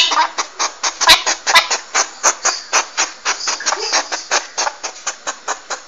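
Porcupine making a rapid, steady series of sharp clicks, about seven a second, with a few louder clicks near the start.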